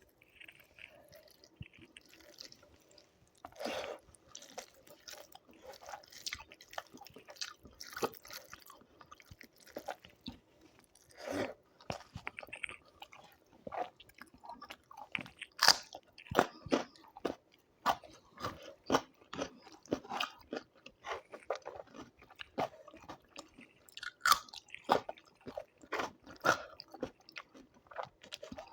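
Close-miked eating sounds: one person chewing with wet mouth noises and irregular crunchy bites, which come more often and louder in the second half. The crunch fits the raw onion and radish served with rice and yogurt chicken.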